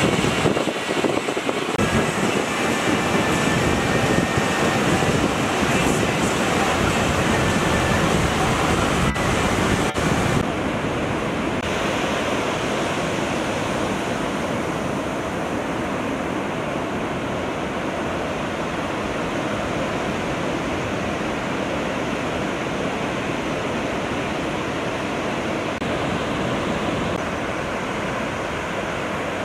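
Ocean surf breaking and washing onto the beach, a steady rush of waves with some wind on the microphone; the sound steps down a little about ten seconds in.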